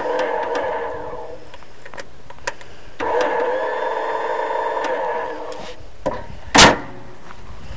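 Electric starter cranking the tractor's 18-horsepower engine in two tries, with a steady whine and regular ticking each time, the second spinning up about three seconds in. The engine doesn't catch: it won't start. A single loud, short burst comes about six and a half seconds in.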